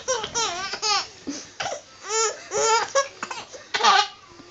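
A baby boy giggling in a quick run of short, high-pitched bursts of laughter. The last burst, about four seconds in, is the loudest.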